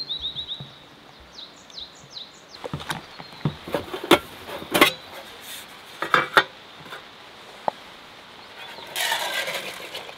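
A few short bird chirps, then the clinks and knocks of a metal mess tin and its lid being handled on a wooden table. About nine seconds in, dry rice is poured into the metal mess tin with a brief rushing rattle.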